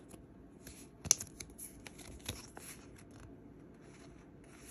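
Hands handling sleeved Pokémon trading cards: faint plastic rustling and small clicks, with one sharper click about a second in.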